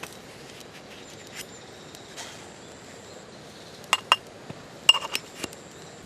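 Metal cookware clinking: a few sharp clinks with a short ring, two close together about four seconds in and three more about a second later.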